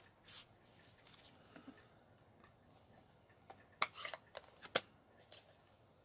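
Sponge brushing ink across embossed cardstock in a soft stroke or two, then faint paper handling, with a few sharp clicks of supplies on the desk about four to five seconds in.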